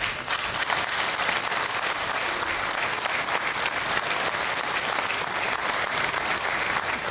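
A crowd applauding. The dense clapping starts all at once and holds steady.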